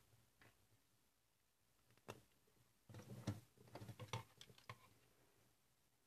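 LEGO Technic plastic parts clicking and knocking as they are handled and pushed together: a single click about two seconds in, then a run of faint clicks and knocks lasting about two seconds.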